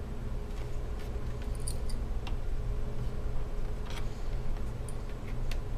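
Light plastic clicks and scrapes from a small tool prying at a laptop's display lid to free the webcam module, a few sharp ticks scattered through, over a steady low hum.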